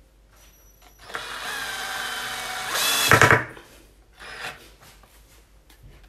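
Cordless drill-driver running for about two seconds as it drives a screw into a wooden bed frame. Its whine gets louder and falls in pitch just before it stops, about three and a half seconds in, with a few faint clicks afterwards.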